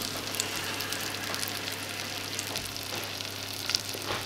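Rice and garlic frying in oil in a stainless steel pot, a steady sizzle with small crackles as the rice is toasted before the water goes in. A low steady hum sits underneath.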